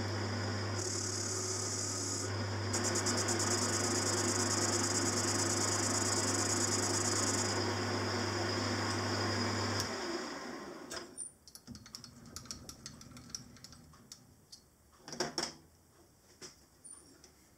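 Lathe running with the turning tool cutting the outside diameter of a crank web, a steady hum with a hiss that changes as the cut goes on. About ten seconds in the lathe is switched off and spins down, followed by a few light clicks and a short louder noise near fifteen seconds.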